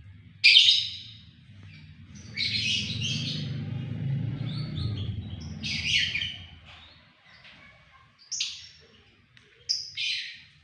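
White-rumped shama singing loud, sharp, sustained song in bursts: a loud phrase about half a second in, a long run of phrases in the middle, then short sharp notes near the end.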